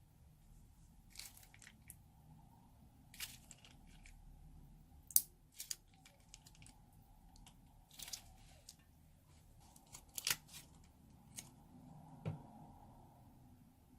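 Slime being squeezed and handled, giving scattered sharp crackles and pops, with the loudest about a third of the way in and again about two-thirds in.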